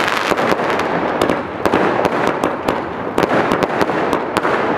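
A 100-shot fireworks cake firing its shots in sequence: sharp bangs and pops, several a second, over a steady hiss and crackle of bursting stars.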